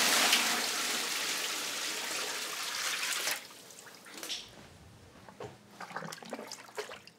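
Mineral spring water gushing and pouring for about three seconds, then cutting off suddenly, leaving only faint trickles and small splashes.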